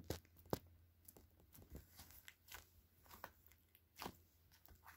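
Sticky slime being pressed and pulled by hand, giving faint, scattered little sticky pops and clicks. The slime is still somewhat sticky.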